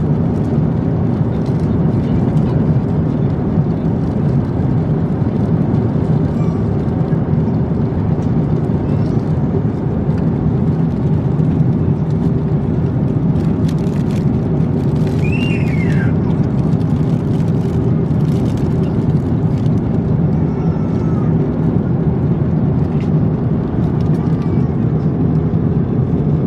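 Steady cabin noise of an Airbus A350-900 in flight: an even low rumble and rush of engines and airflow. A few light clicks and crackles come through around the middle.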